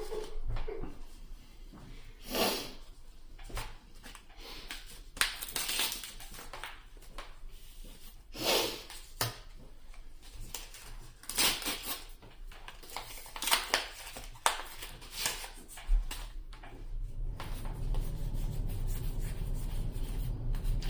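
Yu-Gi-Oh trading cards and pack wrappers being handled: short rustles and scrapes every second or two. A low hum comes up near the end.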